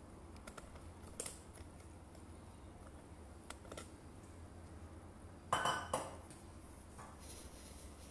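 Glass bowls and kitchen utensils being handled: a few light clicks and taps, then a louder ringing clink of glass about five and a half seconds in.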